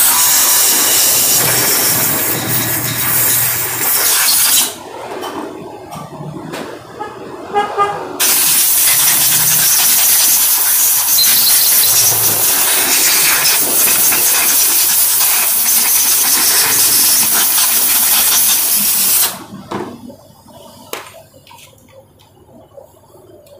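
Aerosol cleaner sprayed through a thin nozzle onto a scooter's throttle body to clean off carbon deposits: a long, loud hiss, a pause of about four seconds with a few clicks, then a second hiss of about eleven seconds that cuts off abruptly.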